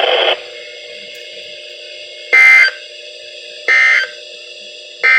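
Three short bursts of the Emergency Alert System end-of-message data code from NOAA Weather Radio, each under half a second with about a second between them. They mark the close of the Required Weekly Test. A steady low hum runs beneath.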